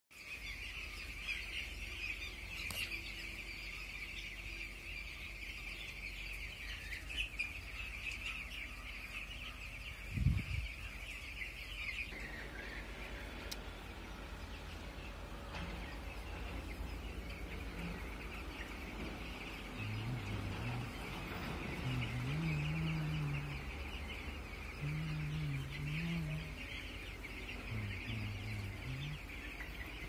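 A large flock of broiler chicks peeping continuously in a dense, high chatter. There is a single thump about ten seconds in, and a deeper, wavering sound comes and goes in the second half.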